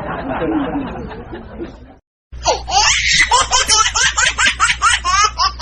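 Two laugh sound effects: a muffled laughing clip fades out, and after a short gap a high-pitched laugh comes in about two seconds later, a fast run of short ha-ha pulses, each sliding in pitch.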